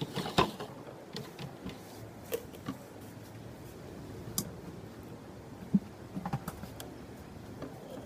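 Irregular light clicks and knocks of tableware and food being handled while eating at a table, with a few sharper knocks, the loudest about half a second in and near six seconds.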